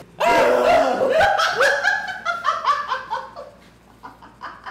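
A man laughing loudly: a quick run of pitched 'ha' syllables, about three a second, that trails off after about three seconds into a few fainter laughs.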